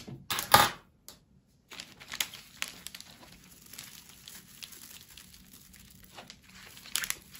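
Crinkling and crackling of a noble-fir floral-foam arrangement being worked out of its small bucket, as scattered small clicks and rustles. A couple of sharp knocks come at the start, followed by a short pause, and a few louder clicks come near the end.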